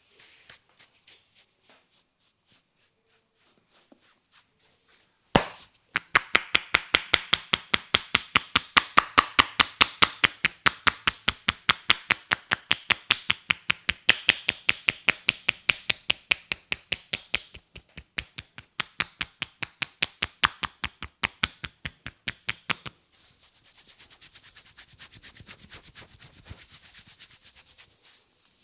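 Hands striking a head in a head massage: after a single knock, a long, even run of sharp claps, about four a second, that keeps going for some seventeen seconds. Near the end it gives way to soft rubbing of the hair and scalp.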